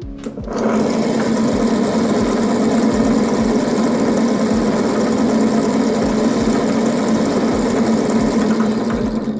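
Bench column drill's electric motor starting about half a second in, running steadily with a strong hum and whine, then switching off near the end and winding down. The drill is powered through a PLC relay for a ten-second timed run.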